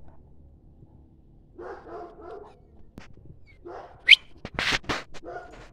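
A dog barking and whining in short bursts, with a loud rising yelp about four seconds in, followed by a few rough, noisy blasts.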